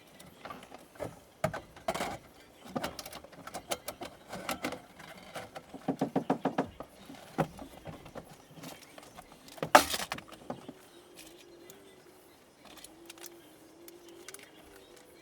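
Work clatter from an HVAC installation: scattered knocks and clicks of tools and parts. There is a rapid run of ticks about six seconds in, and a sharp bang just before ten seconds, followed by a faint wavering hum.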